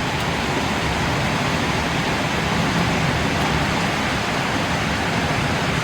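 Heavy thunderstorm rain pouring in a steady, even hiss.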